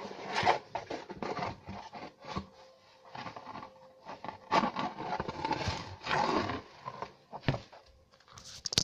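Irregular scraping and rustling as washing powder is scooped and tipped into a washing machine's detergent drawer.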